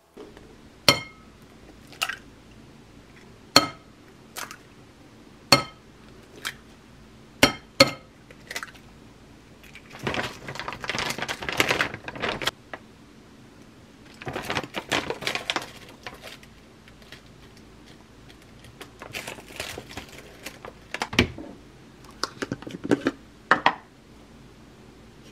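Kitchen prep sounds around a glass mixing bowl: about nine sharp clinks with a short ring over the first nine seconds, then two rustling pours of Korean pancake mix (buchim garu) from a crinkly plastic bag into the bowl. Near the end, a wooden spoon and a glass salt jar clink and scrape.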